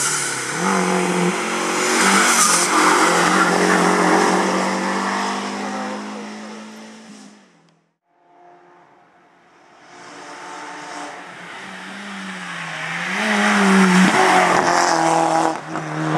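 Renault 5 hillclimb race car under hard throttle, its engine revving and changing pitch through the gears, cut off abruptly about seven and a half seconds in. After a short gap a second race car's engine builds up louder, revving with rises and dips in pitch as it approaches and passes.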